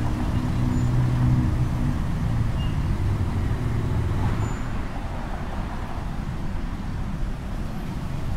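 City road traffic noise: a steady din of passing cars and buses, with a low hum that fades out about halfway through.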